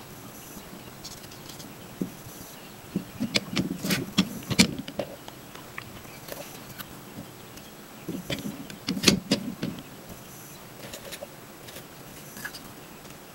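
Clicks and light knocks of shotgun-shell components being handled and fitted at a homemade metal loading press, in two short clusters about three and eight seconds in.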